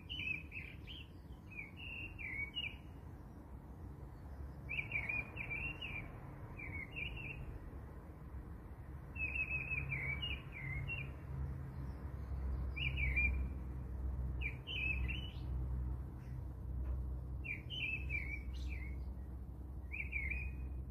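A small bird chirping in short quick phrases, a burst every two seconds or so, over a low steady rumble.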